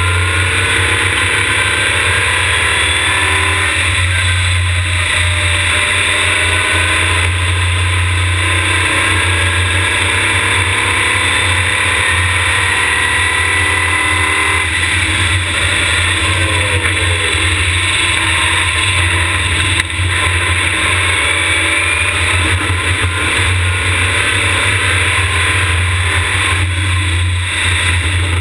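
Open-wheel race car engine at full speed, heard from a camera mounted on the car: the pitch climbs again and again as it accelerates through the gears and drops away about halfway through as it slows for a corner, over steady wind and road rumble.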